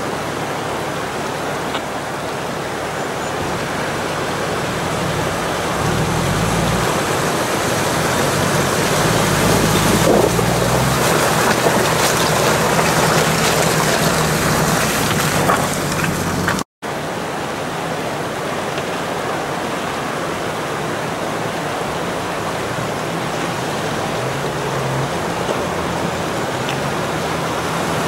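Steady rush of a shallow mountain river. A Jeep Wrangler's engine runs low and steady as it drives through the ford and passes close by, from about 6 to 16 seconds in. The sound cuts out for an instant just after that.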